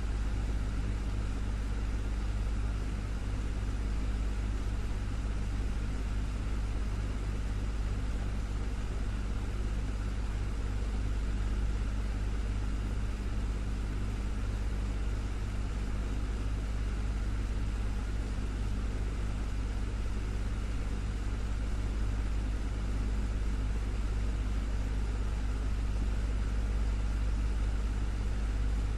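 Desktop fan running steadily: a low motor hum with a few steady tones under an even rush of air, unchanging throughout.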